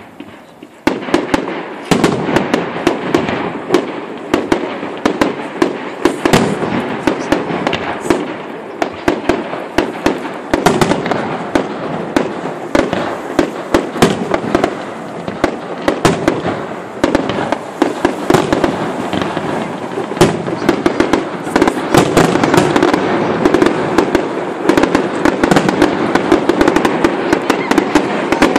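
Fireworks display: a dense barrage of shells bursting in bangs and crackling, which starts abruptly about a second in and keeps going without a break.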